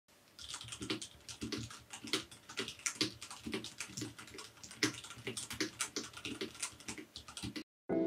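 Typing on a ten-year-old FILCO Majestouch Ninja TKL mechanical keyboard with Cherry MX Red linear switches: a rapid, uneven clatter of keystrokes that stops shortly before the end.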